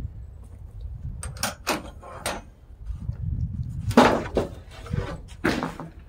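Rough-cut wooden boards knocking and clattering as they are handled. A few light knocks come about a second in, then two heavier thumps near the end, over a steady low rumble.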